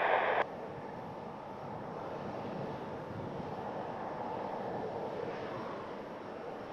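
Distant jet airliner engine noise: a steady rush that swells slightly in the middle and eases near the end. An air traffic control radio transmission cuts off abruptly about half a second in.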